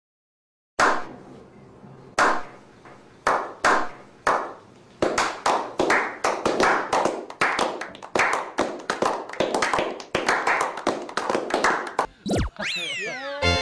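A slow clap: single hand claps about a second apart that speed up and are joined by more hands until they become quick, continuous applause from a small group. Near the end a falling sound-effect sweep cuts across it.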